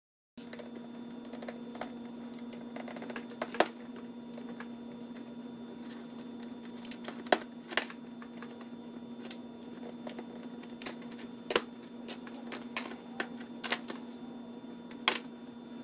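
Irregular small clicks and taps of hand tools and metal carburetor parts being handled while an outboard carburetor is opened up, a few of them sharper knocks. A steady low hum runs underneath.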